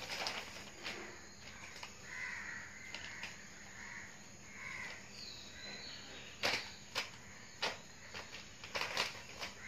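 Large plastic bag crinkling as cats paw at it and push into it, with a run of sharp crackles in the second half. Faint bird calls come earlier.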